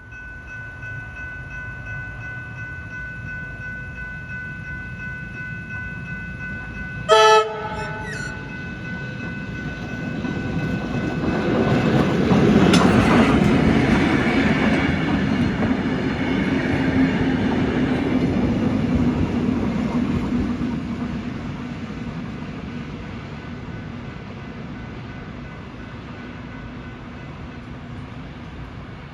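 Electric suburban train approaching with a steady whine, sounding one short horn blast about seven seconds in, then passing close by with wheel and rail noise that peaks and fades away.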